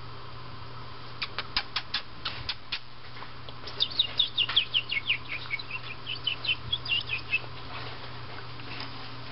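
A bird chirping: a quick series of sharp ticks, then a few seconds of rapid, short, high notes that each fall in pitch.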